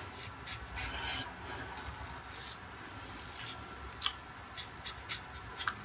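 3D-printed single-edge safety razor scraping through lathered whiskers on the cheek in a quick series of short strokes.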